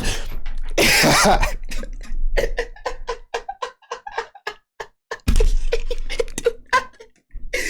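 Tense horror-film soundtrack music made of rapid, short staccato pulses that thin out, broken by two short noisy bursts about one and five seconds in.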